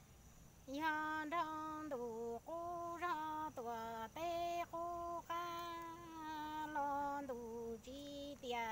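A woman singing Hmong kwv txhiaj, unaccompanied, starting about a second in: long held notes, each phrase ending with a step down in pitch, with short breaths between phrases.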